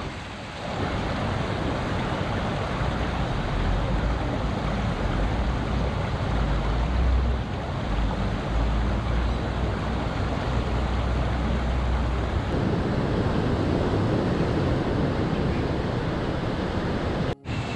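Muddy floodwater rushing steadily, with wind buffeting the microphone as a low rumble. About twelve seconds in it gives way to heavy surf breaking on the shore.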